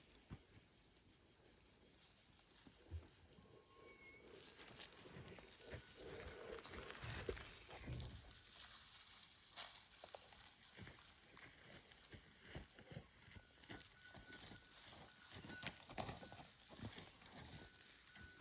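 Faint outdoor ambience: scattered light rustles and clicks over a steady high hiss, with a few short high-pitched tones.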